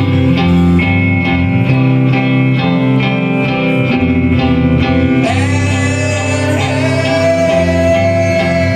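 Emo rock band playing live, with electric guitars ringing out chords over regular drum hits and a singing voice. A held note slides up about five seconds in.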